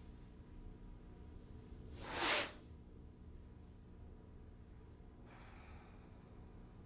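A person's sharp, forceful breath: one short burst of air about two seconds in that swells and cuts off abruptly, followed a few seconds later by a fainter breath.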